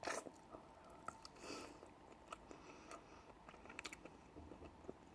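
Close-up chewing of spicy chicken wings: faint wet mouth sounds with scattered small clicks and smacks.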